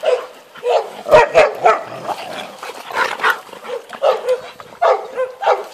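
A dog barking repeatedly in short, sharp barks at irregular intervals, some coming in quick runs of two or three.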